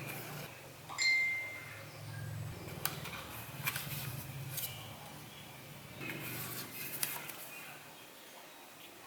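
Light clicks and taps from handling small objects, with a short high ringing tone about a second in, over a low steady hum.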